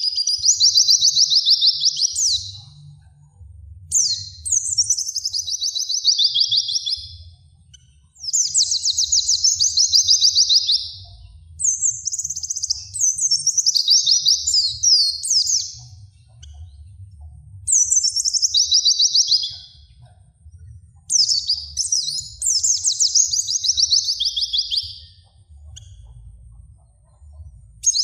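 A songbird singing: high, rapid trilled phrases of two to four seconds, each falling in pitch, repeated about six times with short pauses between.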